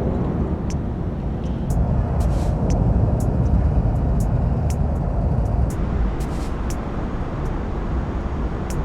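Steady low rumble of distant city traffic, a dense wash with no single passing vehicle standing out, dotted with scattered faint high clicks.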